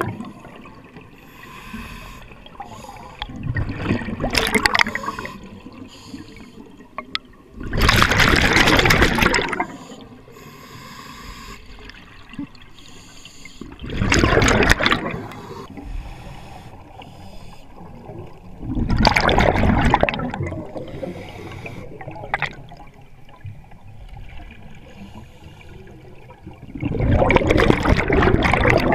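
Scuba regulator exhaust bubbles rushing and gurgling past the camera as a diver breathes out underwater, in five loud bursts a few seconds apart with quieter water noise between.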